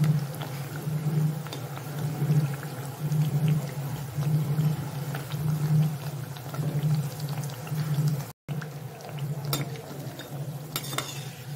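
Methi atta mathri deep-frying in oil in a steel pan, the oil bubbling and crackling, under a steady low hum. Near the end a metal spatula clinks against the pan a few times as the pieces are turned.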